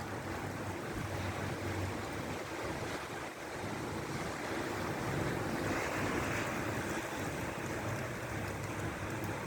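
Strong storm wind rushing steadily, with a gust swelling about halfway through.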